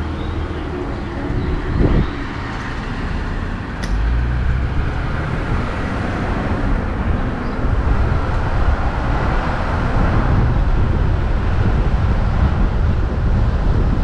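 Jeep Wrangler engine briefly idling at a stop, then pulling away about two seconds in, with engine, tyre and wind noise building and then holding steady as it cruises, heard through a camera on the hood.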